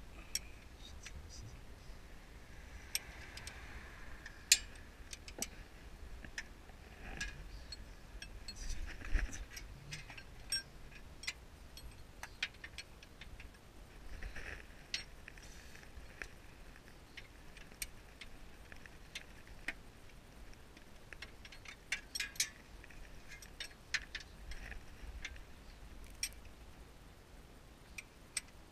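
Irregular metallic clicks and clinks of hand tools and parts being handled under a car, the sharpest about four and a half seconds in.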